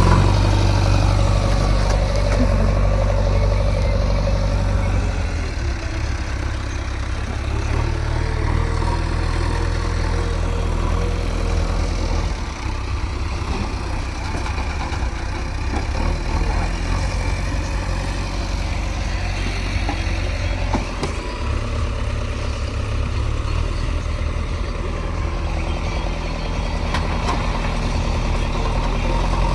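Heavy diesel machinery engine running steadily, a low continuous drone that eases slightly through the middle and picks up again near the end.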